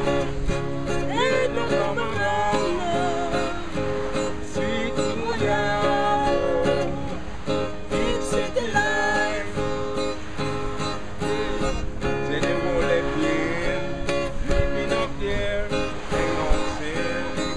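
Acoustic guitar playing with a voice singing over it.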